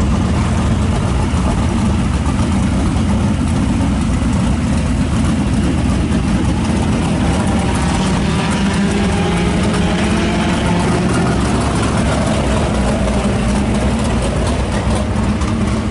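USRA modified dirt-track race car's V8 engine running steadily at idle.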